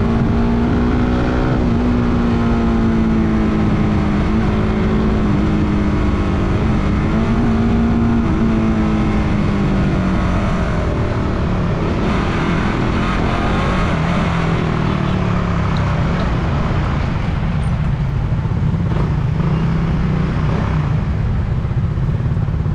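Suzuki Raider 150 Fi's single-cylinder engine running under way at steady revs, over a steady rush of wind and road noise. The engine's pitch dips briefly a few times, then drops about ten seconds in and stays lower.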